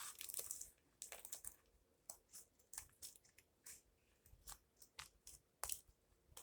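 Scissors cutting into a squishy fidget toy, a faint string of irregular crunchy snips and crackles, densest in the first moment and then single snips every half second or so.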